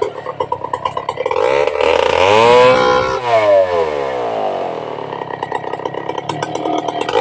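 Stihl two-stroke chainsaw engine revved hard, its pitch climbing steeply about a second and a half in, then falling back. It then runs on at a lower, pulsing speed.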